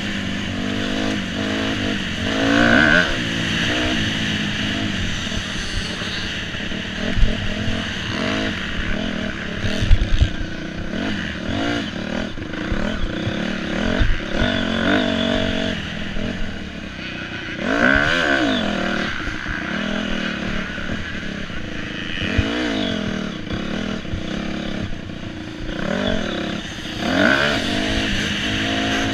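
Motocross bike engine under race load, repeatedly revving up hard and dropping back as the rider works the throttle and gears, heard from a helmet camera. A few sharp knocks near seven and ten seconds in.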